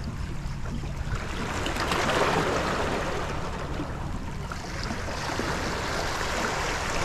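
Sea water washing and lapping at the shore, swelling a little about two seconds in, over a low rumble.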